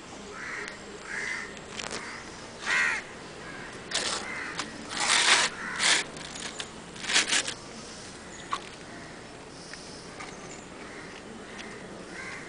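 Crows cawing, a run of harsh calls: a few softer ones in the first three seconds, then louder caws in quick succession around the middle, dying away after about eight seconds.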